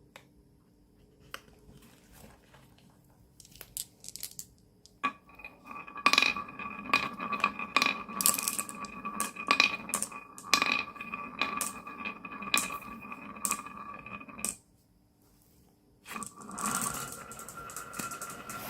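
Marbles clicking and clacking as they run down a wooden marble run: a few scattered clicks, then from about five seconds a dense clatter over a steady whine that cuts off suddenly, with more clatter starting a second and a half later.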